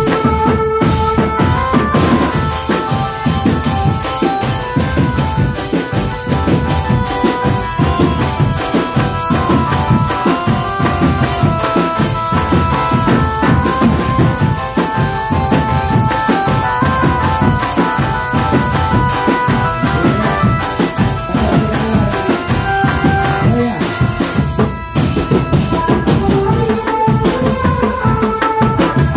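Youth drum band playing: marching bass, snare and tenor drums beating a busy rhythm under a melody line.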